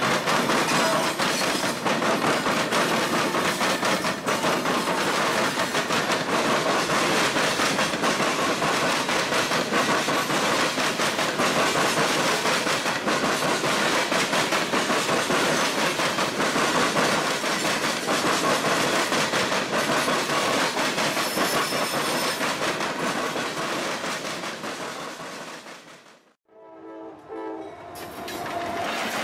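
Loaded Norfolk Southern coal train rolling past at close range: diesel locomotives and then a string of loaded coal hoppers, with a steady rumble and the wheels clacking over rail joints and switches. Near the end the sound drops away, and a faint train horn sounds in the distance.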